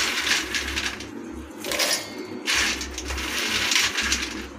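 Roasted fox nuts (makhana) scooped by hand from a steel plate and dropped into a stainless steel mixer-grinder jar, a light rustling rattle in several short bursts as each handful goes in.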